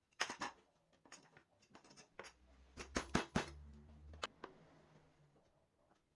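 Workshop handling sounds: a string of sharp knocks and clicks with scraping in between, and a short low hum in the middle.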